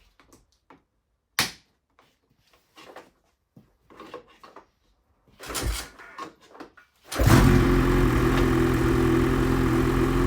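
2024 Ski-Doo Summit 850's Rotax 850 E-TEC two-stroke twin with its stock exhaust can, starting about seven seconds in and then idling steadily. Before it, scattered knocks and one sharp clack.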